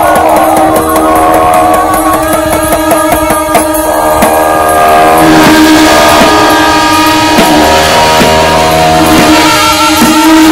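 Tibetan Buddhist ritual music: a large frame drum (nga) on a handle is beaten with a curved stick in frequent strokes, while monks' wind instruments sound a steady held tone with wavering, reedy lines above it. The sound grows brighter and fuller about halfway through.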